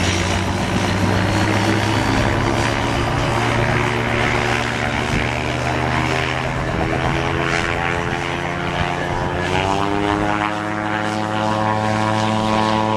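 Magni gyroplane's propeller engine running steadily, its pitch rising about ten seconds in and holding higher.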